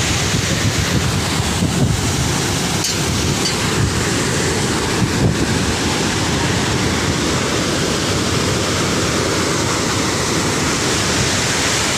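Floodwater rushing through a dam's open spillway gates and churning in the river below: a loud, steady rush of water.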